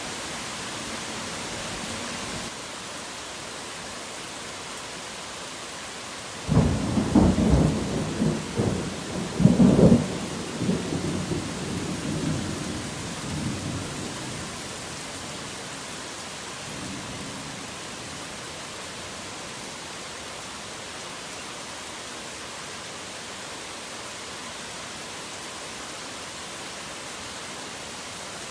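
Steady heavy rain with a thunderclap: a sudden low rumble breaks in about a quarter of the way through, peaks twice, then rolls away over several seconds.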